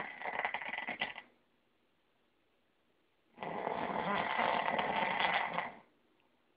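Snoring: one snore dies away about a second in, and a second snore of about two and a half seconds follows a couple of seconds later, with quiet breathing pauses between them.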